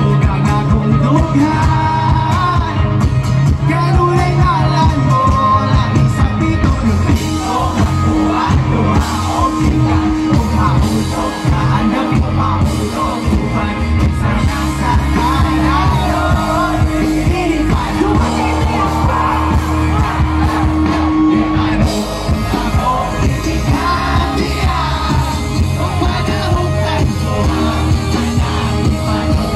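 Live Visayan pop band performing through a PA: lead vocals over acoustic guitar, drums and keyboard, with the crowd yelling along.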